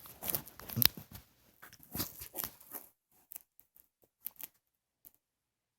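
Irregular rustling with sharp clicks, loudest about a second in, then a few faint scattered ticks that die away after about four and a half seconds.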